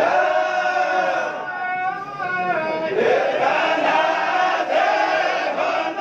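A large group of men chanting the Quran together in unison, in long drawn-out melodic phrases. A new phrase starts about halfway through with a rise in pitch.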